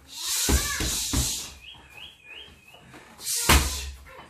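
Bare-handed martial-arts shadowboxing: a few dull thuds of footwork on a foam floor mat, with stretches of hissing. A bird chirps three times about halfway through.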